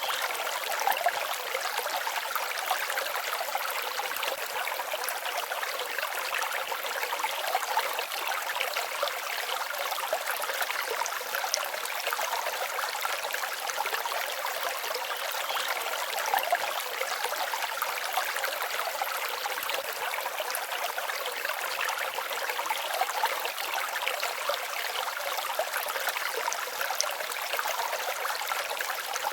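Forest stream babbling and trickling steadily.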